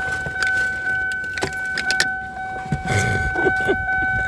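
A steady electronic beep held on one pitch for several seconds, with clicks, knocks and jangling over it.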